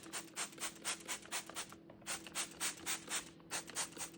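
Brisk back-and-forth scrubbing of a dirty kitchen cabinet door by hand, about four to five strokes a second in three quick runs with short breaks.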